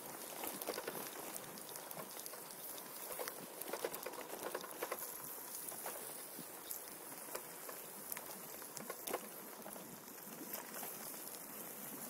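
Footsteps crunching irregularly on a gravelly forest path, a dense crackle of short clicks with no clear beat.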